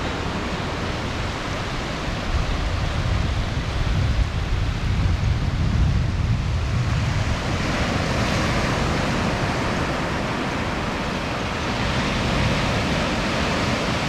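Ocean surf breaking and washing up the beach, a steady hiss that swells about halfway through, with a low rumble of wind on the microphone in the first half.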